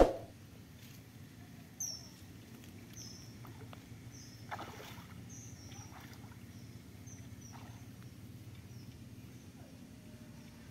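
Quiet outdoor ambience: a string of short, high, falling chirps repeating every second or so over a low steady hum, after a brief loud hit at the very start.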